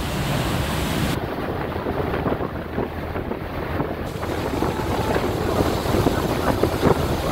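Rushing, churning water of a motor yacht's wake, mixed with wind buffeting the microphone. The sound shifts abruptly about a second in and again about four seconds in as the recording changes.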